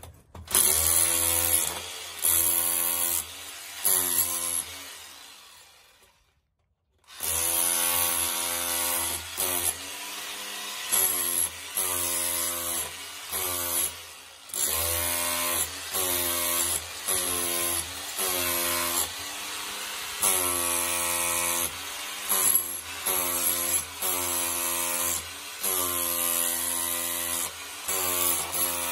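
Corded rotary hammer with a chisel bit chipping a box-sized hole out of a concrete block wall, running in short repeated bursts about once a second. It dies away and stops about five seconds in, then starts again about two seconds later and keeps going in bursts.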